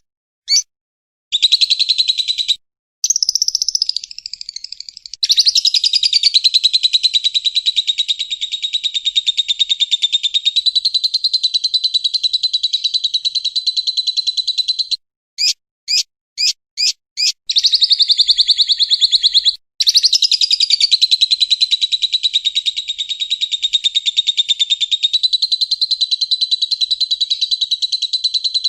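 Lovebird chatter: two very long, rapid, high trills, each held for about twelve to thirteen seconds without a break, in the ngekek style. A handful of short separate chirps fall between them, about halfway through.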